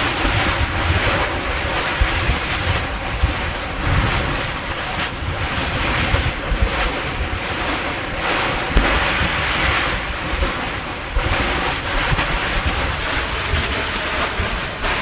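Ocean surf rushing in swells at a lava ocean entry, with wind buffeting the microphone and a few sharp knocks, the clearest about nine seconds in.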